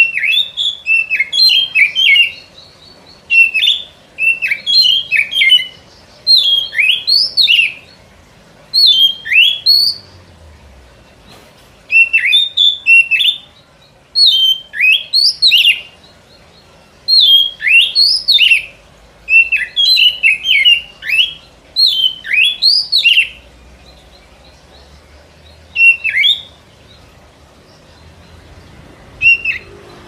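Oriental magpie-robin (kacer) singing: phrases of quick, sweeping whistled notes, a second or two each, broken by short pauses, with longer pauses near the end.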